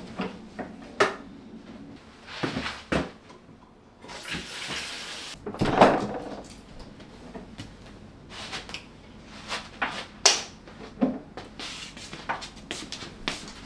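Handling sounds in a bathroom: a run of light clicks and knocks as toiletry bottles and shower fittings are picked up, moved and set down, with a brief hiss about four seconds in followed by the loudest knock.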